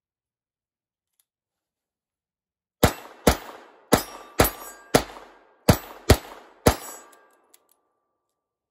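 Ruger LCR .22 LR revolver firing Winchester white box ammunition: eight sharp shots in about four seconds, emptying the cylinder, starting about three seconds in. A steel target plate rings faintly after the hits.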